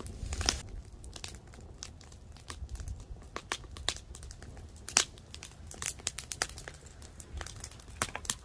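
Wood fire of small sticks crackling and popping as it burns over pottery in an open surface firing, with irregular sharp snaps, the loudest about five seconds in.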